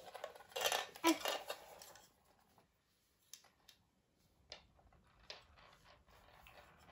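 Hard plastic marble-run track pieces clattering and clicking as they are picked up and fitted together: a cluster of clicks in the first two seconds, then a few single clicks.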